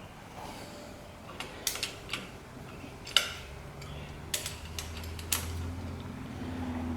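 Scattered sharp metallic clicks and clinks of a wrench working on hydraulic line fittings, a few seconds apart. A low hum builds in the second half.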